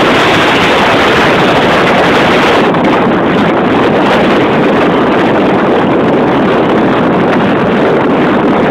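Loud, steady wind noise buffeting the microphone of a camera carried on a moving road bike, an unbroken rushing roar.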